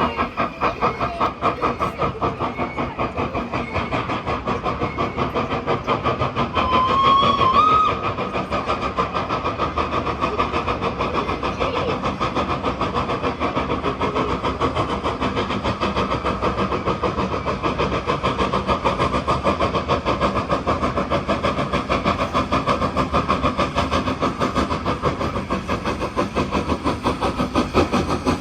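Hudswell Clarke standard-gauge steam locomotive working hard up a 1-in-13 gradient, its exhaust beating in a quick, steady rhythm. A brief rising whistle sounds about seven seconds in.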